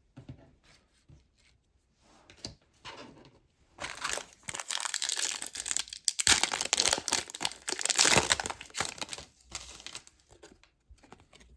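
Hockey card pack wrapper being torn open and crinkled: a few light rustles, then several seconds of dense crackling, loudest around the middle, dying back to small rustles near the end.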